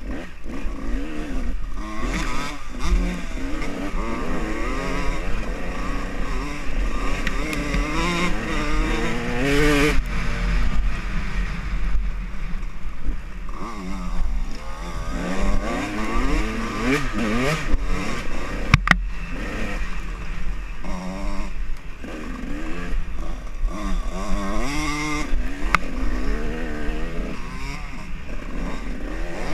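Dirt bike engine revving up and down with the throttle as it is ridden over a rough trail, over a steady low rumble of wind and vibration on the bike-mounted camera. A single sharp knock about two-thirds of the way through.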